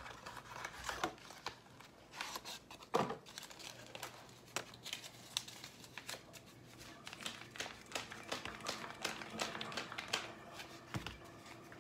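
A cardboard box of Sure-Jell pectin being opened by hand and the paper pectin packet inside handled and crinkled: a run of small crackles and rustles, with one sharper snap about three seconds in.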